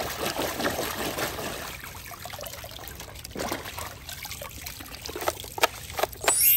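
Water splashing and swishing as a plastic toy shotgun is scrubbed by hand in shallow muddy water, then trickling and dripping off it as it is lifted out. A few sharp clicks come near the end, followed by a rising sweep of a sound effect.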